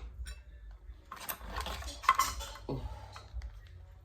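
Cutlery clinking and knocking against dishes, in scattered short strokes, busiest about a second to two seconds in.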